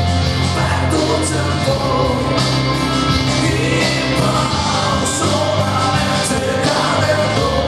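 Live band music with a man singing lead.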